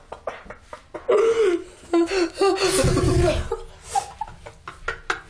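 Someone laughing in a run of bursts for a couple of seconds, with a low rumble from the phone being handled partway through.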